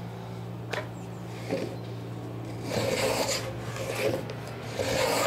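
Hand plane shaving a wooden boat plank's edge, taking about three rasping strokes in the second half after a light tap near the start, as the end is thinned down to a half lap for clinker planking.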